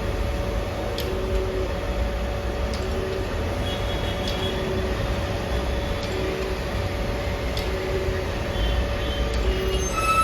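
Jones & Shipman 1400 surface grinder running, with a steady hum and a second, lower tone that comes and goes every second or two over a low rumble, plus a few faint clicks.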